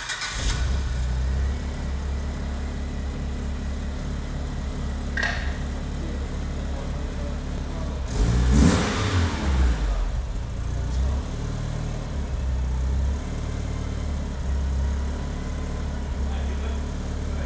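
Mitsubishi Lancer Evolution 9's turbocharged 4G63 inline-four, heard through a newly fitted aftermarket exhaust, idling with a deep, steady note. About eight seconds in, one throttle blip rises and falls over roughly two seconds, and a few lighter blips follow later.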